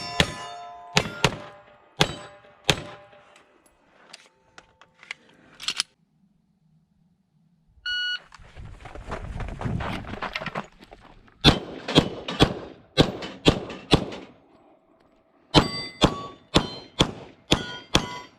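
Pistol shots from a Glock 22 in .40 S&W fired in quick strings, with steel targets ringing as they are hit. About eight seconds in, a shot timer gives one short electronic start beep before the next string.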